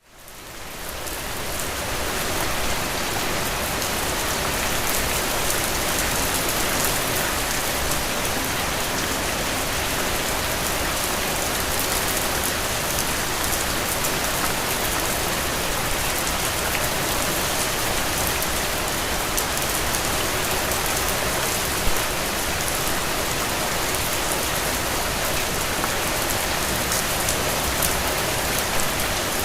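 Steady rain falling, with drops dripping and pattering on a surface, fading in over the first two seconds. One drop lands louder about three-quarters of the way through.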